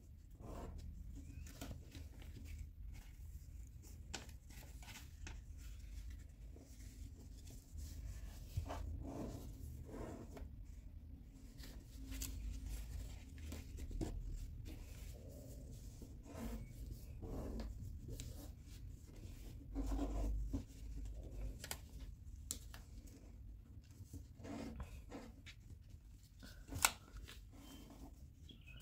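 Origami paper being folded and pressed flat by hand: soft, irregular rustles and crisp creasing crackles as the sheet is worked against a paper surface, with one sharper snap near the end.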